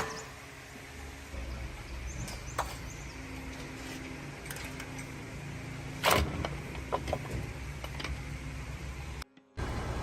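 A steady low mechanical hum with a loud sharp knock about six seconds in, followed by a few lighter clicks. The sound drops out briefly near the end.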